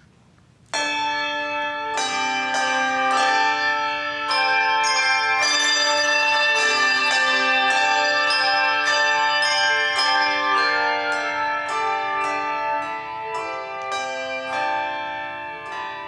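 Handbell choir playing together: many brass handbells struck in chords and runs, each note ringing on over the next. The playing starts suddenly about a second in.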